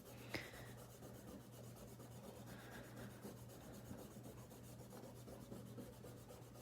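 Faint rubbing of an eraser on paper, removing pencil lines from a finished ink drawing, over a low steady hum.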